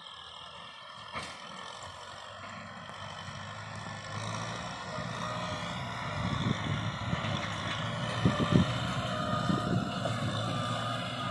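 Farm tractor's diesel engine running steadily under load as it pulls a rear rotary tiller through dry soil, getting louder as it approaches.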